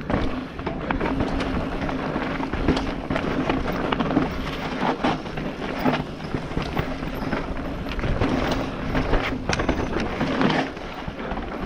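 Mountain bike riding fast down a rough dirt forest trail, heard from a helmet camera: tyres rumbling over dirt and roots with frequent knocks and rattles from the bike, over wind on the microphone.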